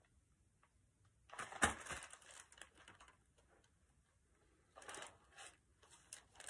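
Paper rustle of a picture book's pages being handled and turned: a short rustle about a second and a half in, the loudest sound, and a softer one near the end.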